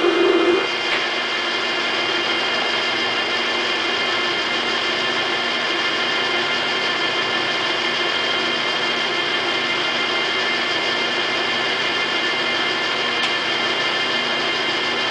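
A 12-1/2 x 42 Cincinnati Tray-Top lathe running under power with a steady mechanical whine made of several held tones. About half a second in, a louder low hum drops away and the running settles slightly quieter.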